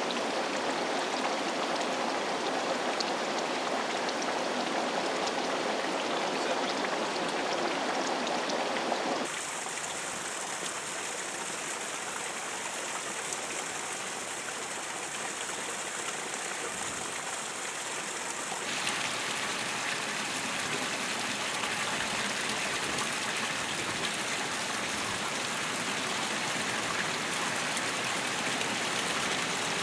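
Spring water running steadily, in three takes that change sharply about nine and nineteen seconds in. Water pours from the stone spouts of a spring fountain and splashes on wet paving, then trickles and drips down a wet, mineral-stained rock face.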